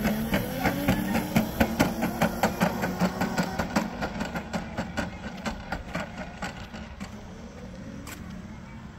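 Electric Razor drift kart driving away over a concrete sidewalk: a motor hum, rising in pitch in the first second, under a rapid rattle of clicks, about three or four a second, that fades as the kart pulls away.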